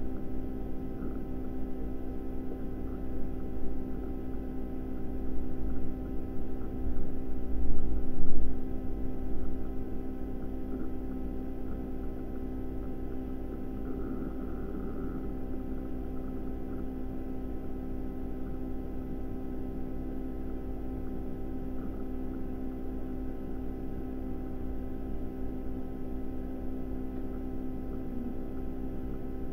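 Steady hum made of several fixed tones, over a low rumble that swells and falls unevenly in the first ten seconds and then settles.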